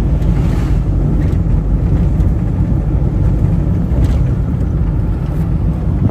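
Steady low rumble of a car being driven, heard from inside the cabin: engine, road and wind noise together.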